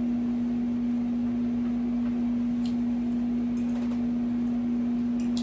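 A steady low hum held on one pitch, with a faint click about two and a half seconds in and another near the end.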